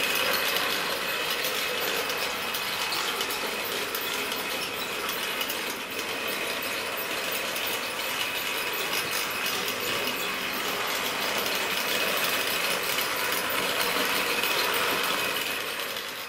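Wrenn OO-gauge model locomotive running around the track, its electric motor and gearing whirring with a dense, steady clicking of wheels on rail. The sound fades out near the end.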